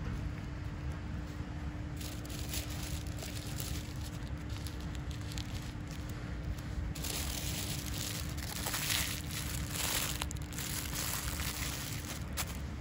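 Small plastic bags of radish seed crinkling as they are handled, starting about two seconds in and loudest for a few seconds in the middle, over a steady low rumble.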